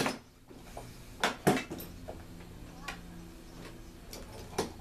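Metal hand tools clinking and clanking as they are picked up and put down among other tools on a workbench. A handful of separate sharp knocks, the loudest at the start and two close together about a second and a half in.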